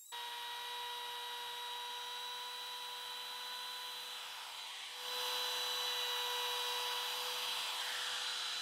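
Bosch compact trim router running with a steady high whine, its straight bit routing knife slots into a Jatoba (Brazilian cherry) board. It starts abruptly at the beginning and gets louder and noisier about five seconds in.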